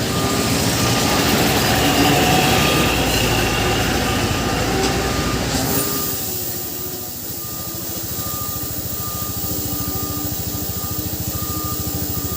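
Heavy diesel truck engine running, loud for the first half and then dropping to a steadier, quieter level about halfway through. A faint high beep repeats about once a second throughout.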